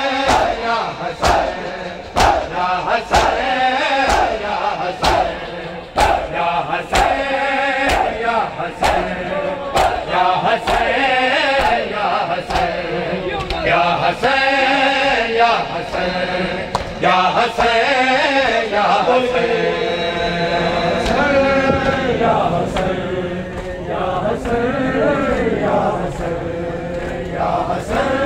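A crowd of male mourners chanting a noha in unison, with sharp rhythmic chest-beating (matam) slaps about twice a second that are strongest in the first half and then fade.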